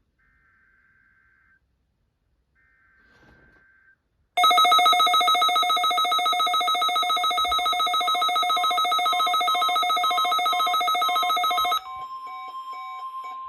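NOAA Weather Radio alert test. Two faint data bursts of the SAME header are followed, about four seconds in, by a weather-alert receiver's loud, rapidly pulsing alarm, set off by the National Weather Service's 1050 Hz warning alarm tone. The alarm stops suddenly near the end, leaving the steady 1050 Hz tone.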